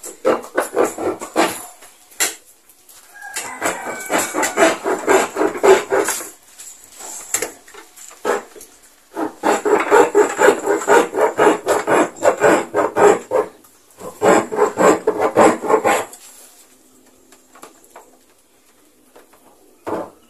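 A blade sawing through the plastic wall of a jerrycan in quick back-and-forth strokes, in four bursts of a few seconds each. The sawing stops about sixteen seconds in.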